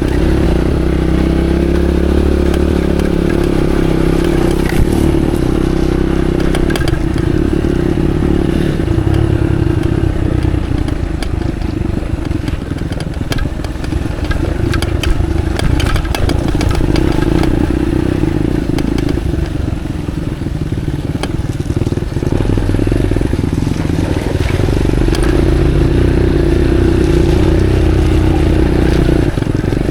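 Motorcycle engine running at a low, steady pace on a rough, wet dirt road, with clattering and knocks from the bike over the bumps.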